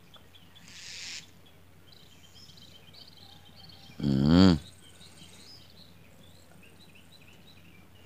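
Faint birdsong of small birds, scattered chirps and a rapid trill, over steady outdoor background noise. There is a brief rustle about a second in, and about four seconds in a man makes a short, loud wavering hum.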